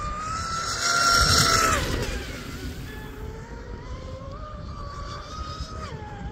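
Electric motor of a radio-controlled mono-hull speedboat running at speed: a high whine with a rushing hiss, loudest about a second in. Its pitch drops sharply just before two seconds, climbs back, and drops again near the end.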